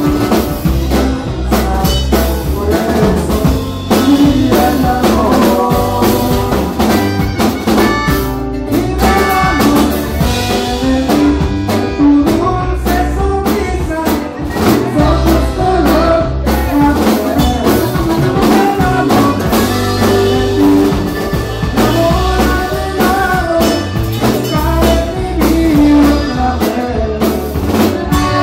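Live band playing a song: electric guitars, bass and a drum kit keeping a steady beat, with a singer's voice over them.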